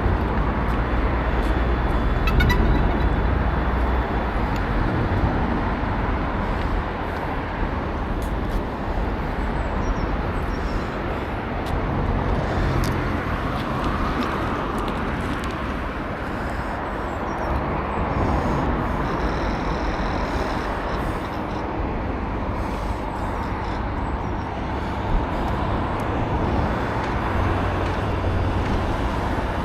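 Steady road-vehicle noise: a continuous low rumble with a hiss over it, unbroken throughout.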